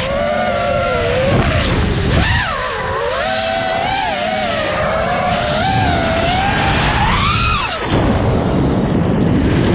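Brushless motors of a 6S FPV freestyle quadcopter whining, heard from its onboard camera, the pitch rising and falling with the throttle over rumbling wind and prop wash. About eight seconds in the whine drops out briefly as the throttle is cut, leaving only the wind noise.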